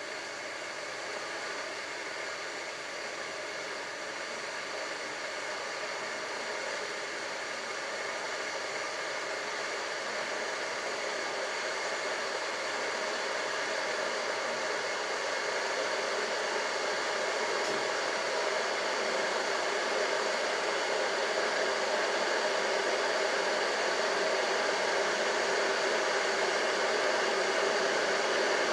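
Blaupunkt EKG501BK glass electric kettle heating water: a steady rushing hiss that grows gradually louder as the water heats.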